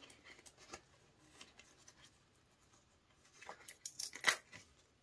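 A few small coins clinking together as loose change is put into a plastic zip pocket: faint handling at first, then a short cluster of sharp metallic clinks about three and a half seconds in.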